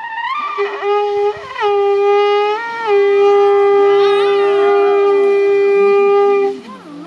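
A small horn blown by mouth: a few short rising blasts, then one long, steady, loud note that cuts off about six and a half seconds in.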